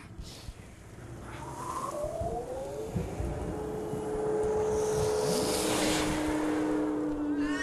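Swelling magical whoosh from a film soundtrack, building in loudness with rising gliding tones and a rushing hiss. Two steady droning tones are held underneath.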